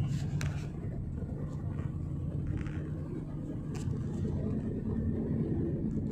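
Steady low rumble of a moving car heard from inside the cabin, engine and tyre noise on the road, with a few faint clicks.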